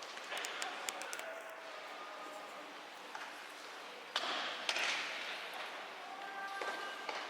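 Sumo arena ambience: a murmuring crowd with a few sharp clicks and taps early on, then a sudden short swell of crowd noise about four seconds in.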